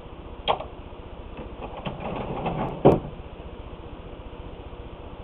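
A sharp click about half a second in, a brief rustle, then a louder knock near three seconds in, over a steady low hum.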